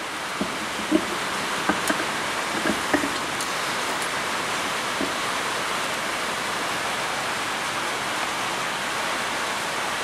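Rain drumming steadily on a tin roof, a continuous hiss heard from inside the shop. A few light clicks and knocks in the first three seconds.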